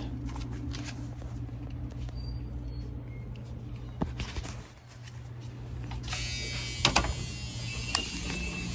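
Frigidaire top-freezer refrigerator just plugged in and powering up: a steady low hum with a few clicks. A higher hiss joins about six seconds in as more of the unit comes on.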